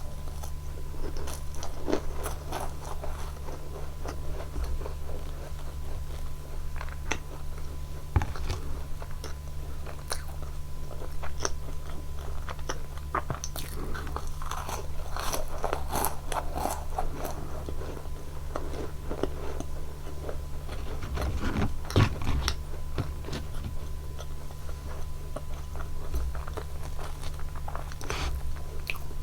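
Close-miked crunching bites and chewing of Nunettine, flaky puff-pastry biscuits dipped in whipped cream, with many short crisp crackles. A steady low electrical hum runs underneath.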